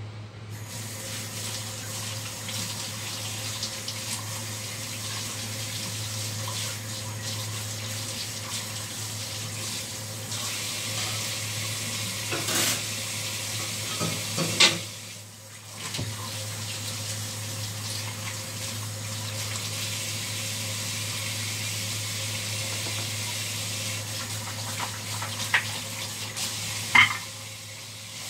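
Kitchen tap running steadily into a sink as a raw octopus is rinsed under it, with a few sharp knocks. The flow breaks off briefly about halfway and again just before the end, over a steady low hum.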